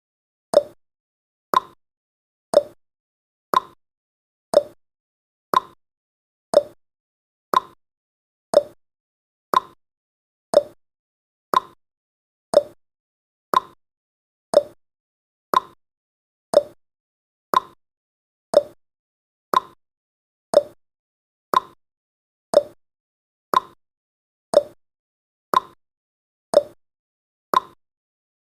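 Countdown timer's ticking sound effect: short, sharp clock-like ticks, exactly one each second, each dying away at once.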